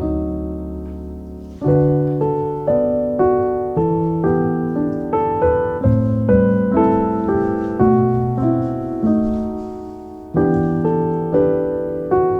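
Solo piano music: a slow melody of single struck notes over held chords, each note fading before the next, with a held chord at the start and a new phrase beginning about ten seconds in.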